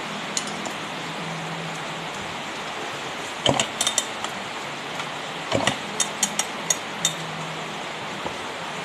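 Metal tools and parts clinking and tapping against each other in two short clusters of sharp clicks, over a steady hiss.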